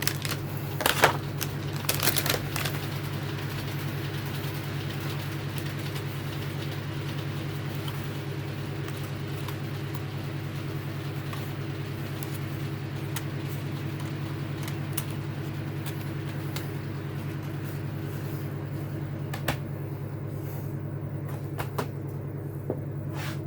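Model railway coaches being taken out of their boxes: a cluster of sharp clicks and rustles of card and plastic packaging in the first few seconds, then occasional fainter clicks, over a steady low hum.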